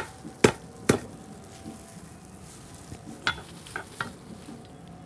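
A cleaver knocking lemongrass stalks against a wooden chopping board to bruise them lightly. There are three hard blows in the first second and three lighter knocks about three to four seconds in.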